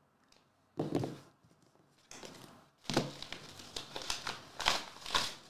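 A folded paper slip being unfolded and flattened by hand, crinkling and rustling in short bursts that begin about a second in and come thicker in the second half.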